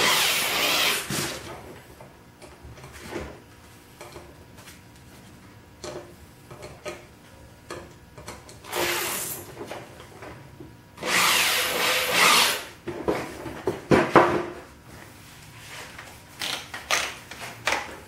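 Cordless drill driving pocket-hole screws into a wooden butt joint, in three runs: a short one at the start, another about nine seconds in, and a longer one about eleven seconds in. A few knocks of the wood being handled follow near the end.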